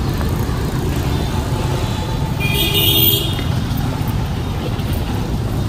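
Steady street-traffic rumble with a vehicle horn honking once, for just under a second, about two and a half seconds in.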